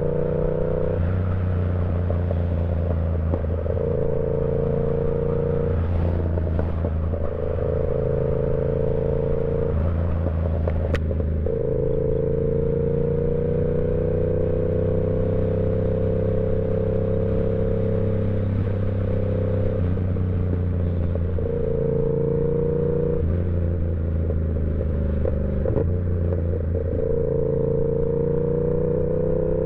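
Yamaha YZF-R7's 689 cc parallel-twin engine under way, its note shifting between steady pitches every few seconds as throttle and gears change, with a slow climb in pitch around the middle.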